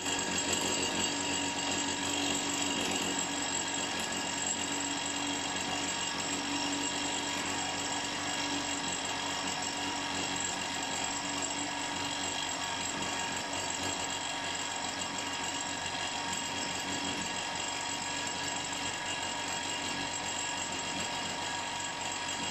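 Bench drill running steadily with a constant machine whine while its bit drills a small hole into the metal cylinder block of a model steam traction engine.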